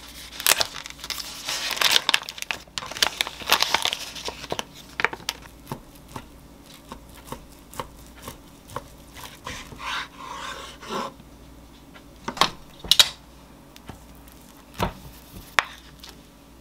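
Plastic sausage wrapper being torn open and crinkled by hand, then a kitchen knife cutting chicken-breast sausages on a wooden cutting board, the blade tapping the board about twice a second. A few louder knocks follow near the end.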